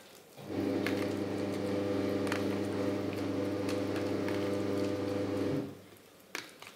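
A steady electrical hum from a small appliance motor runs for about five seconds and then stops, with a few light clicks of a fork mashing bananas against a plastic container.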